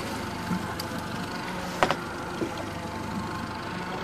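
Fishing boat's engine running steadily, with one sharp knock a little before the two-second mark.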